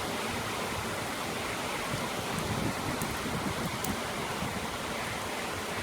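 Heavy pouring rain driven by wind: a steady dense hiss of downpour, with a few faint sharp ticks a few seconds in.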